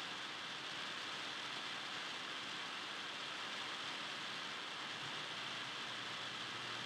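Steady, even hiss of background noise with no distinct bounces, squeaks or voices standing out.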